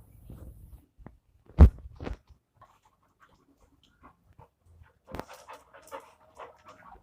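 A dog panting close by, with two sharp knocks about a second and a half and two seconds in.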